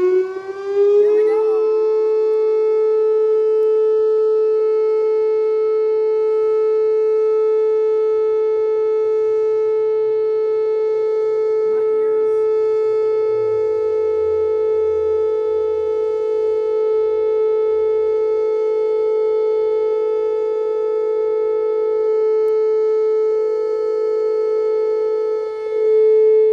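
Whelen WPS 2809 electronic outdoor warning siren sounding its steady alert tone during a test. The pitch climbs over about the first second, then holds one steady tone with many overtones.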